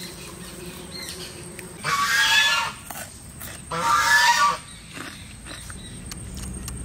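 Farmyard fowl calling twice, each call loud and under a second long, about two seconds apart.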